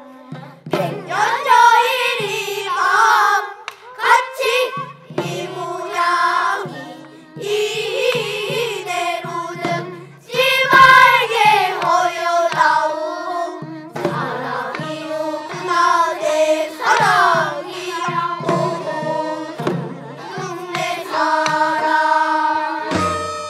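Children singing changgeuk, the Korean sung drama in pansori style, with a boy's solo voice and a children's chorus taking turns. Near the end the singing gives way to a steady instrumental passage with a deeper bass.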